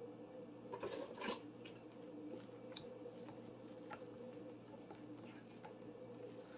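A metal fork clinks against a glass mixing bowl a few times about a second in as it stirs the dough, followed by faint light taps and rubbing as the dough is worked, over a steady low hum.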